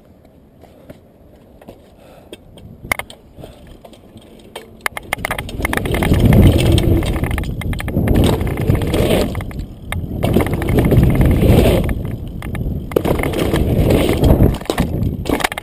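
Mountain bike rolling at speed on a dirt-jump run-in: rushing wind and tyre noise on the action camera's microphone, swelling in waves from about five seconds in after a quieter start with light clicks from the bike. The rush breaks off sharply near the end.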